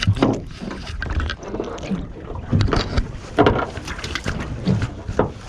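Wind buffeting the microphone with a steady low rumble, over scattered knocks and rattles of handling aboard a small fishing boat.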